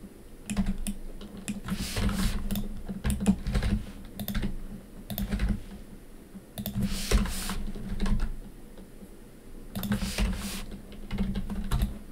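Computer keyboard keystrokes, typed in short irregular runs, with a low thud under many of the presses.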